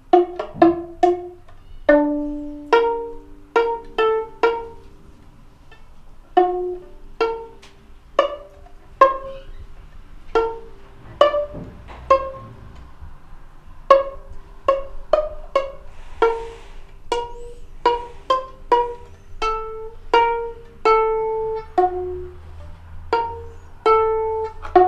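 Background music of plucked pizzicato strings picking out a light melody note by note, a few notes held a little longer.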